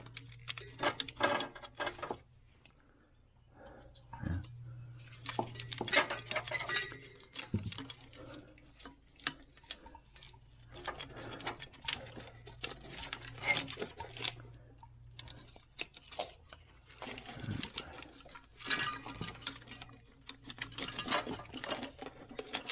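Irregular metallic clicks, clinks and rattles of hand tools at work on a car engine, with brief pauses, over a steady low hum.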